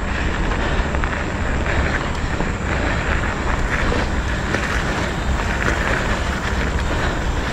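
Wind rushing over an action camera's microphone and mountain-bike tyres rolling over a gravel trail at about 20 km/h, a steady rumbling noise.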